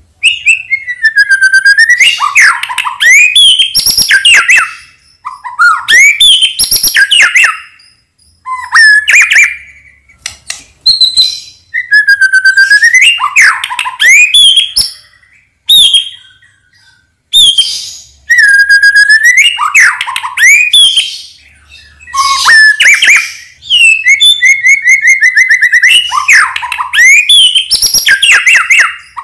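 White-rumped shama (murai batu) of the Medan type in full, vigorous song. Loud, varied phrases of clear whistles, slurred notes and rapid trills come in bursts of a few seconds, with short pauses between them.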